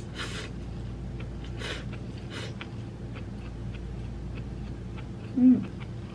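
Stir-fried rice noodles being slurped from chopsticks: three short slurps in the first three seconds, then small clicks of chewing, and a brief hummed 'mm' about five and a half seconds in.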